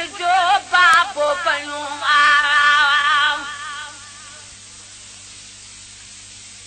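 A man's solo voice singing a Sindhi devotional naat, ending a line on a long held note with a wide vibrato. About four seconds in the voice stops, leaving only a steady low hiss and hum.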